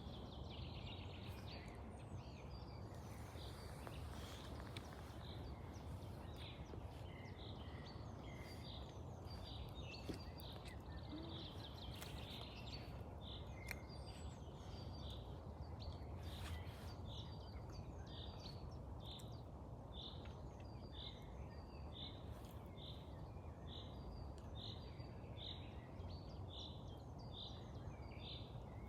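Small songbirds chirping: short high notes, irregular at first, then settling into a steady series of about one to two chirps a second, over a low steady background rumble.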